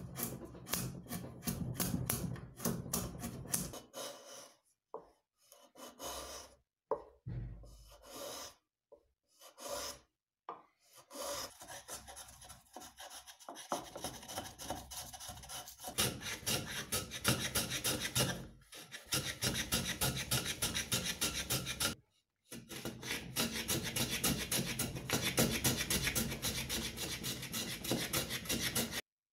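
Hand tools shaving a wooden block: a chisel paring and then a small hand plane taking quick repeated strokes, each a short rasping scrape. The strokes come in runs, with a few brief breaks, and stop abruptly near the end.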